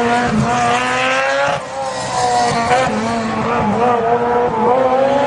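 Race car engine accelerating hard uphill, its note climbing steadily in pitch, with a brief drop about a second and a half in at a gear change before it climbs again.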